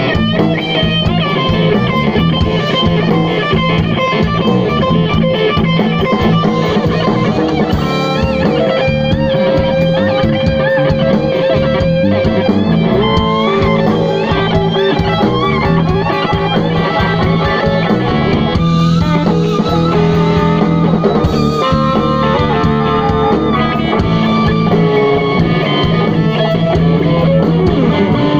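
Live blues band playing loud through a PA: an electric guitar leads with bent, wavering notes over bass and drums.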